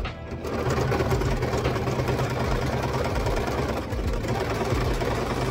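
Singer electric sewing machine starting up about half a second in and running steadily at an even speed, stitching through a weft of curly wig hair.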